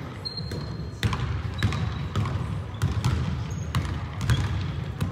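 Basketball being dribbled on a hardwood gym floor: a series of sharp, irregular bounces, about seven in five seconds.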